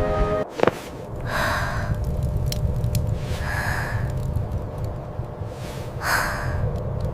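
Steady low rumble of a train in motion, starting just after a short knock, with three short breathy hisses spread across it.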